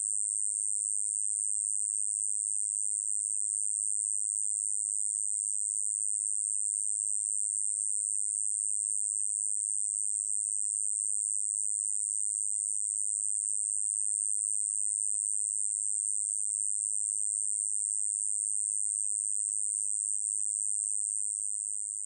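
Kkoma-yeochi-bejjangi, a small cone-headed katydid, singing one continuous high-pitched buzz without a break, fading out near the end.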